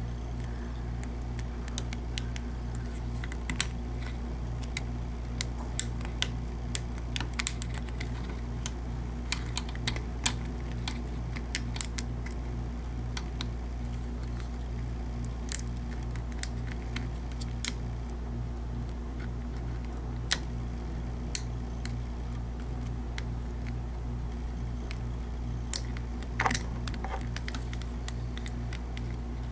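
Small, irregular metal clicks of a slimline half-diamond lock pick and tension wrench working the pins in the key lock of a Master combination padlock, busier in the first half, with a short cluster near the end. A steady low hum runs underneath.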